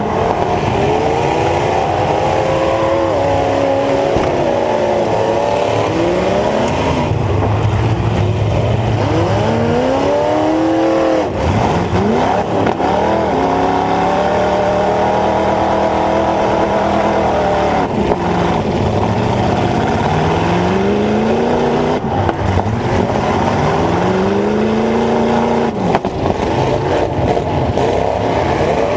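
Dodge Ram pickup's V8 engine heard from inside the cab, revving up and dropping back again and again as the truck accelerates and backs off in a demolition derby.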